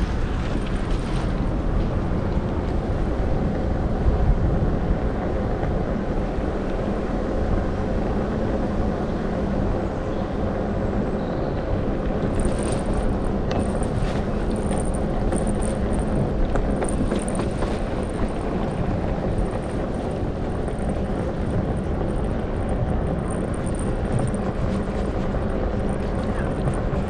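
Steady noise of a bicycle ride on a camera mounted on the bike: wind buffeting the microphone and tyres rolling over paved path, heaviest in the low end and unbroken throughout.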